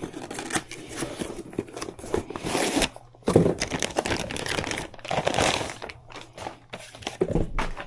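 Rustling and crinkling handling noise in several bursts, each about a second long, with small clicks and knocks among them.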